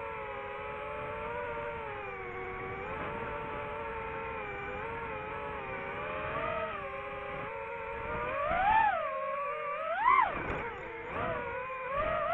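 DJI FPV drone's electric motors and propellers whining in flight, a steady pitched whine that drifts with throttle. About nine seconds in, and again a second later, the pitch swoops sharply up and back down as the throttle is punched.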